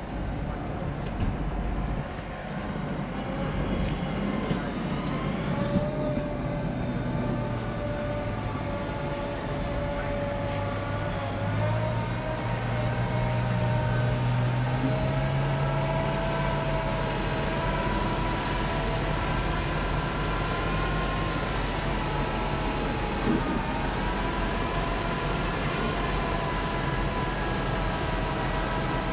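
Fendt tractor's diesel engine running under load while pulling a Strautmann loader wagon over the grass silage clamp. The pitch rises and falls slowly as the engine speed changes.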